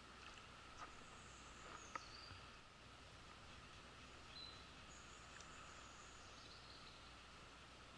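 Faint riverside ambience, close to silence: a steady insect drone, a few high chirping bird calls, and two small clicks in the first two seconds.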